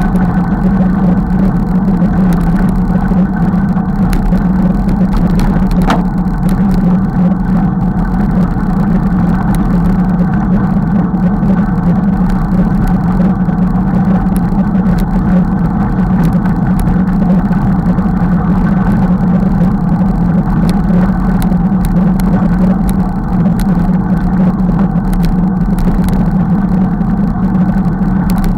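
Steady, loud rumble of a Triban RC520 road bike rolling along a gravel towpath: tyre noise and frame vibration picked up by a handlebar-mounted camera, with a constant low hum.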